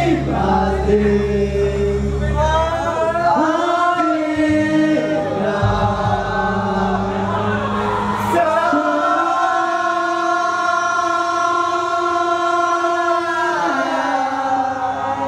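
Several men singing together into microphones over a backing track, loud and strained; about halfway through they hold one long note for several seconds.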